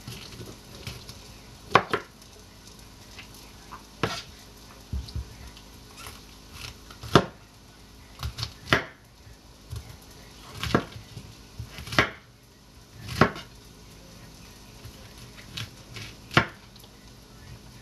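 Large kitchen knife cutting a head of raw cauliflower into florets on a cutting board: irregular sharp knocks of the blade striking the board, about one every second or so.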